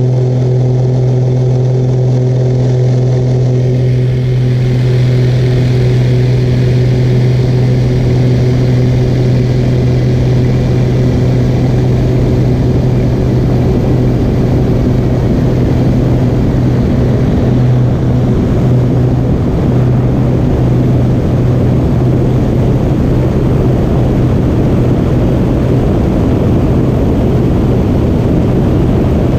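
Piper Chieftain's twin turbocharged six-cylinder Lycoming engines and propellers at takeoff power, a loud steady low drone through the takeoff roll and liftoff. From about four seconds in, a rushing wind noise builds as the aircraft gathers speed.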